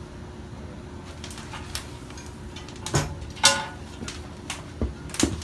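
A few sharp metallic knocks and clinks from work on the generator, one with a short ring about three and a half seconds in, over a steady low hum.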